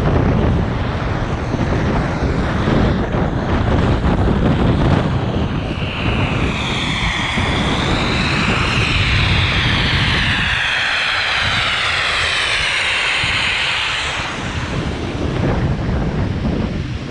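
Wind rushing over the microphone of a camera carried down a snowy slope, with a louder hissing scrape of edges sliding over hard-packed snow from about six seconds in until near the end.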